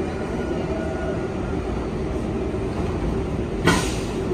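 New York City Subway 7 train, heard from inside the car as it moves slowly along the station platform. A steady low rumble runs with a faint steady hum, and a single sharp knock comes about three and a half seconds in.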